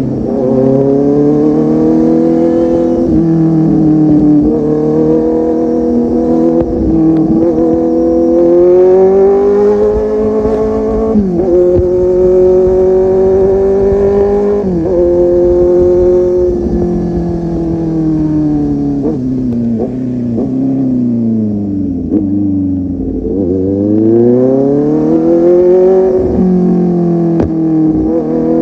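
Kawasaki Z800's inline-four engine through an aftermarket full-system exhaust, under way and accelerating through the gears. The revs climb and fall sharply at each shift, several times over. Near the end the engine slows down and then pulls back up.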